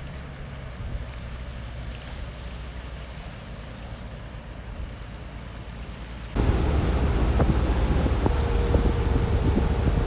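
Wind on the microphone and a low rumble across open water. About six seconds in, it cuts to the much louder noise of riding on a moving motorboat: engine rumble, rushing water and wind buffeting the microphone.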